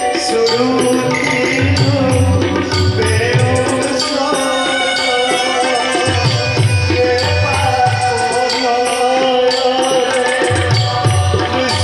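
Live devotional bhajan music: a tabla pair played in a steady rhythm under a keyboard melody, with clusters of deep bass drum strokes every few seconds.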